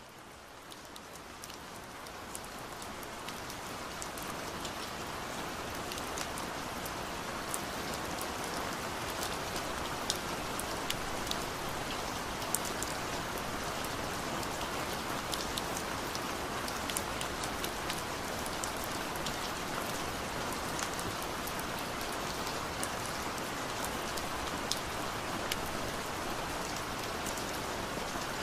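Steady rain-like patter: an even hiss with scattered light drop ticks, fading in over the first few seconds and then holding level.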